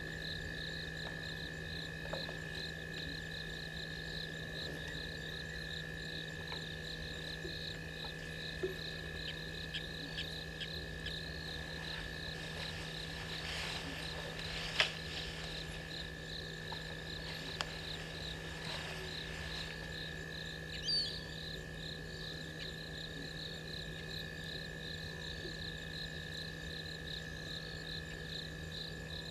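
Night chorus of crickets and other insects: a fast pulsing trill high up over a steady high whine, with a low steady hum beneath. A few sharp snaps and a spell of rustling come near the middle, with the loudest snap about halfway through.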